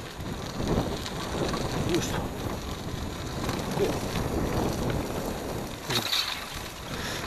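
Cross bike rolling over a rough gravel track: a steady rough rumble of the tyres on loose stones, with rattling of the bike, and a sharper rattle about six seconds in.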